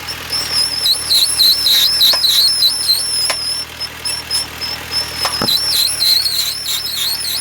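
High-pitched warbling squeal from a vehicle's front axle, wavering in pitch and coming and going over a low running hum, with a few sharp clicks. The owner is certain the abnormal noise comes from the front differential housing or a part beside it.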